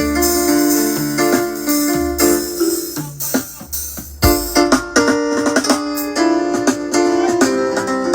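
Music with sustained chords, deep bass notes and sharp percussive hits.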